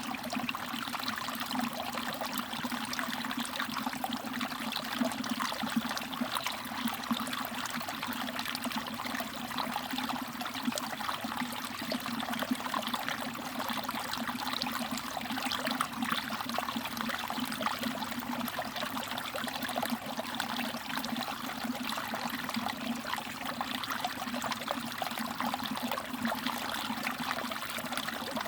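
Mountain valley stream trickling and babbling over rocks, with small drips and splashes; a steady, even flow throughout.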